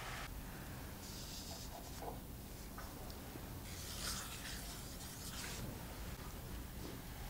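Salt poured from a measuring teaspoon onto mashed potatoes in a glass bowl: a soft, faint hiss of falling grains, strongest a little past halfway.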